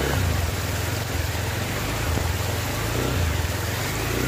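A motor vehicle's engine running, a low hum that rises and falls a little, with a steady hiss behind it.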